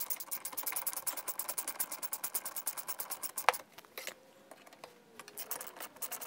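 Power driver running bolts onto a recliner mechanism's drive rod, with a rapid, even clicking. A sharp click about three and a half seconds in; it goes quieter, then starts again on the next bolt near the end.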